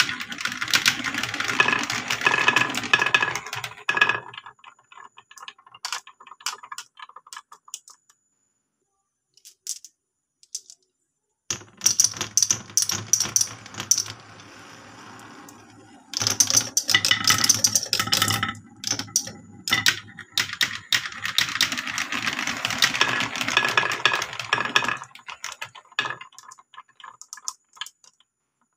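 Glass marbles rolling and clattering down a wooden and plastic marble run, rapid clicks of glass on wood and glass on glass. The clatter comes in two long dense runs with sparse clicks and a pause of a few seconds between them, and a steadier rolling sound for a couple of seconds in the middle.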